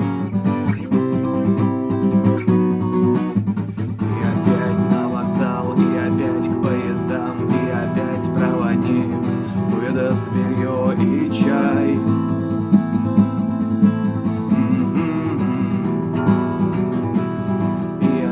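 Acoustic guitar strummed, playing a steady run of chords with no singing.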